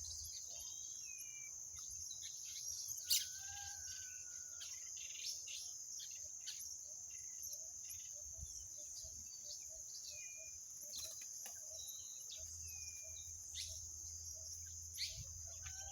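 Birds chirping and whistling in short scattered calls, one sharper and louder about three seconds in, over a steady high-pitched insect trill.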